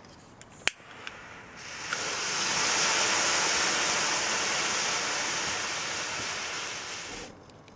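Homemade iron oxide and aluminum powder thermite burning in a tin can: a sharp click, then about two seconds in a steady rushing hiss that builds quickly, runs for about five seconds and dies away.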